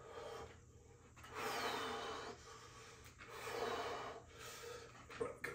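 A man breathing hard through a set of lateral raises taken to failure, with a forceful exhale about every two seconds.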